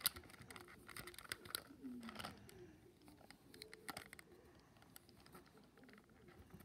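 Plush toys being handled and rubbed on a fleece blanket: soft rustling and scattered light clicks. About two seconds in there is a quiet call falling in pitch, a child voicing a toy creature.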